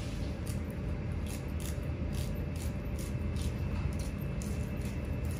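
Long kitchen knife sawing along the skin of a raw salmon fillet as it is skinned, in short scraping strokes about two a second, over a steady low hum.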